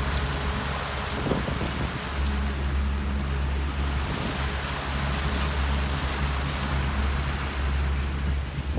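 Outboard motor running steadily as the boat travels at speed. A low, even engine hum sits under a broad rush of water from the wake.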